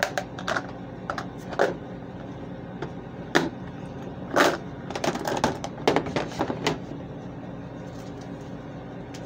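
Irregular plastic clicks and knocks as a plastic makeup case is handled close to the microphone, thickest in the middle, over a steady low hum.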